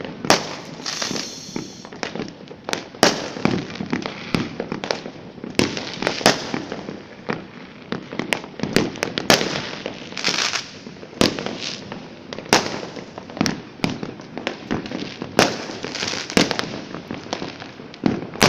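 Fireworks and firecrackers going off all around: sharp bangs at irregular intervals, one to three a second, over a continuous crackle.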